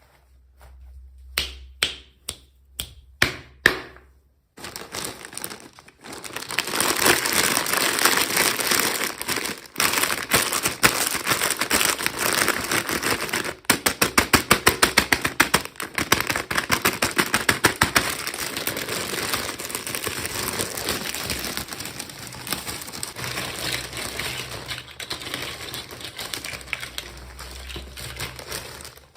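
Handling and opening plastic toy packaging: a few sharp clicks, then steady crinkling and scratching, with a quick run of rapid clicks about halfway through.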